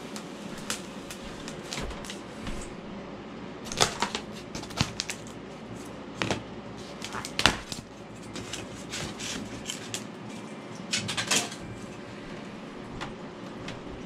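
Foam board being handled as a cut-out piece is lifted free and set aside: a scatter of sharp knocks and scrapes, loudest about halfway through and again a few seconds before the end, over a steady low hum.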